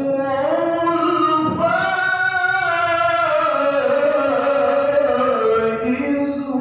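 Melodic Quran recitation (tilawah) by a male qari: one voice drawn out on long held notes that glide slowly up and down, with a short break about a second and a half in.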